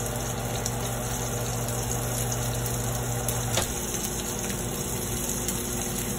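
Steady hum with an even hiss; the low hum cuts out with a click about three and a half seconds in, and the hiss goes on.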